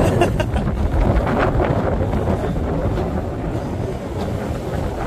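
Sea wind buffeting a handheld camcorder's microphone, a steady low rumble that eases slightly after about three seconds.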